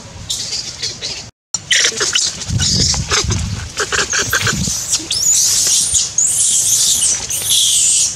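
Young macaque screaming in distress: repeated shrill, noisy shrieks that run together into near-continuous screaming from about five seconds in.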